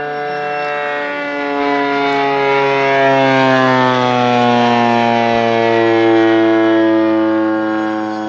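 Engine of a giant-scale radio-control Spitfire model flying past overhead: a steady engine note that grows louder and slides down in pitch as the plane passes, from about three seconds in.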